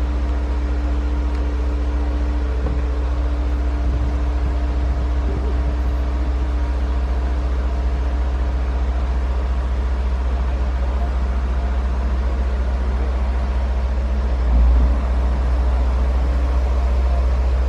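Tadano AR5500M 550-tonne crane's diesel engine running steadily under a lift, a constant deep rumble with a steady hum over it, swelling briefly about fifteen seconds in.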